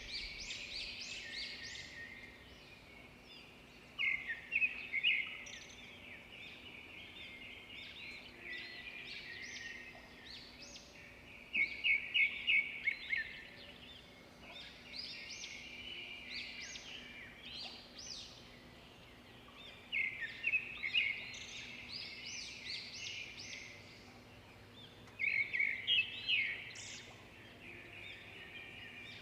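Several songbirds chirping and singing, a dense chorus of short notes and trills, with louder bursts of rapid repeated chirps about four, twelve, twenty and twenty-five seconds in.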